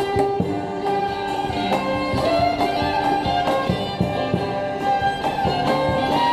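Old-time string band playing live: fiddle carrying the melody in long bowed notes over picked banjo, with cymbal and drum percussion keeping a steady beat.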